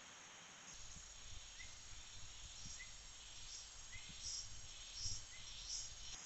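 Forest ambience: a steady hiss with high-pitched insect calls pulsing over it, and a short rising chirp that repeats about every second. A low rumble starts about a second in.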